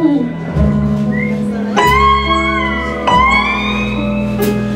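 Live band playing an instrumental break in a blues song: a lead guitar plays long held notes that slide up and down in pitch, over bass and keyboard.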